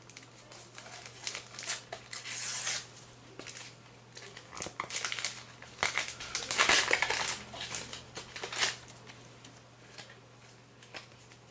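Paper stickers being handled: irregular crinkling and rustling with small ticks, loudest about two seconds in and again around six to seven seconds in.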